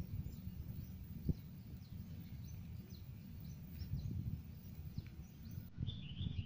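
Outdoor ambience: an uneven low rumble of wind on the microphone, with scattered faint, short bird chirps and a brief warbling bird call near the end. A single sharp knock sounds a little over a second in.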